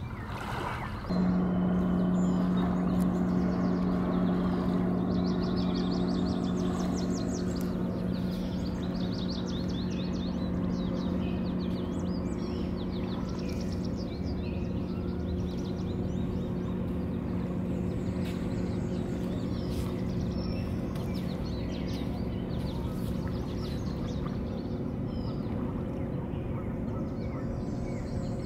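Steady low engine hum that starts about a second in and slowly fades. Small birds chirp and trill over it.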